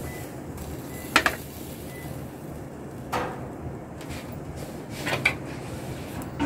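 Sharp metal clanks from a small portable stainless-steel barbecue grill as the lid and skewers knock against it. There are three, about two seconds apart, the first and last each a quick double knock.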